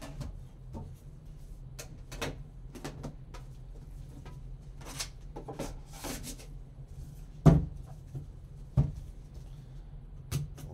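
Gloved hands handling a trading-card box and its foam-lined lid: brief scrapes and rustles, scattered light taps, and two sharper knocks a little over a second apart in the second half.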